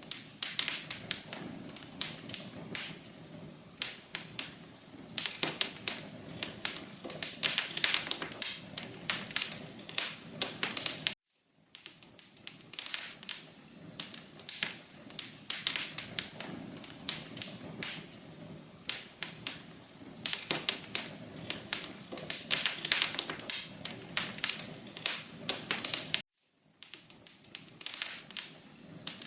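Crackling wood fire in a fireplace: dense, irregular pops and snaps over a soft hiss. The sound drops out to silence for a split second twice.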